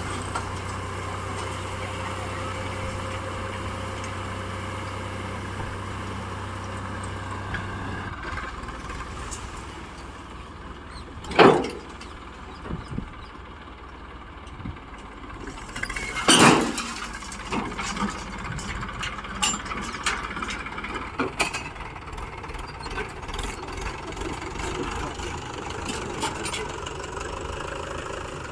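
Diesel engines of a backhoe loader and tractors running at a work site. A steady low hum changes about a third of the way in. Two loud sudden bangs come a few seconds apart near the middle, followed by scattered lighter knocks.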